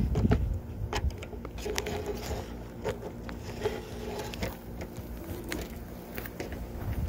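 Rubber motor of a free-flight model plane being wound with a hand winder: scattered clicks and crackles with short creaks, over a low rumble of wind on the microphone.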